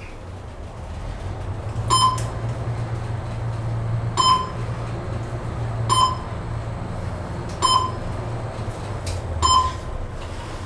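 Schindler 500A traction elevator car travelling between floors: a steady low hum of the ride, with five short electronic beeps evenly spaced about two seconds apart, the floor-passing signal as the car goes by each landing.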